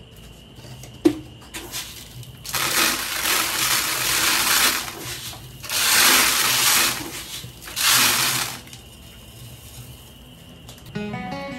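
Handfuls of dry grain poured through a plastic funnel into a plastic bucket, rattling and pattering in three bursts of one to two seconds each. A single sharp click about a second in.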